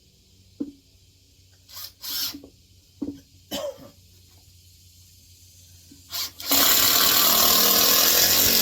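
A few short knocks and clatters of screws and tools being handled, then about two seconds of a power drill driving a screw into wood, which stops abruptly near the end.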